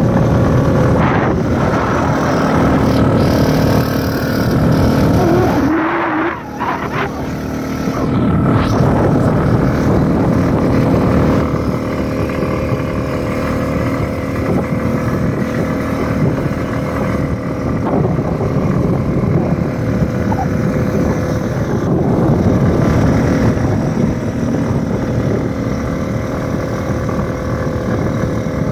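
Vehicle engine running steadily under way, with heavy rushing road and air noise; the sound dips briefly about six seconds in.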